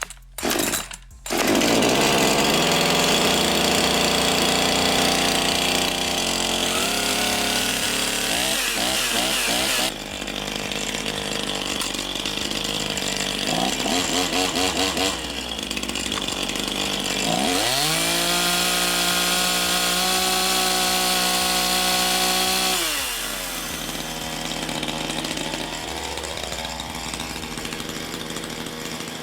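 Makita DCS5121 50 cc two-stroke gasoline chainsaw engine: a few short sputters, then it catches about a second and a half in and runs at high speed with shifting revs. It revs up sharply about 17 seconds in, holds there, and falls back to lower, quieter running about 23 seconds in.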